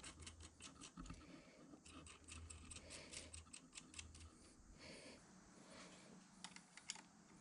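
Faint, light clicks and clinks of steel clamping hardware being handled: a toe clamp, threaded stud, washer and nut set in place on a rotary table. The clicks come thickly for the first few seconds, thin out, and a few more come near the end.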